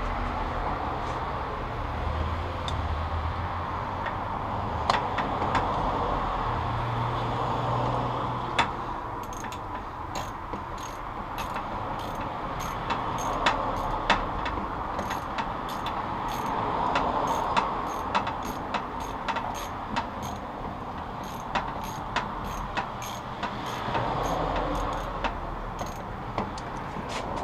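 Irregular sharp metallic clicks and clinks from a ratchet and small steel parts being worked on an engine case, coming thick from about a third of the way in, over a steady background hum.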